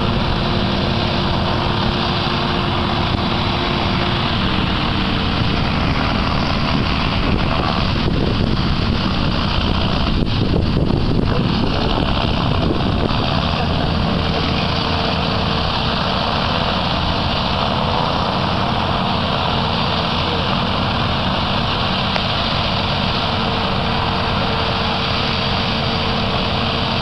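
Combine harvester and tractor engines running steadily as they work the field, a little louder about ten seconds in as the tractor with its grain trailer comes closer.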